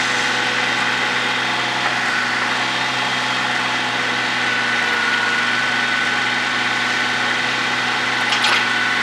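IHI 18J mini excavator's Isuzu diesel engine running steadily, with a constant high whine over it. A brief clank near the end.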